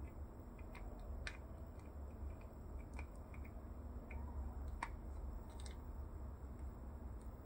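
Faint, scattered clicks and taps of small plastic figure parts being turned and handled in the fingers, over a low steady hum.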